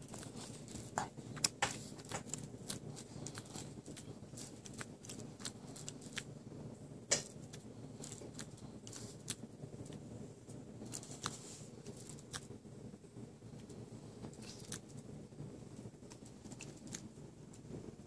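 Jack Russell terrier suckling on a Great Dane's fur as if nursing: faint, irregular wet clicks and smacks of her mouth, a few sharper ones standing out now and then.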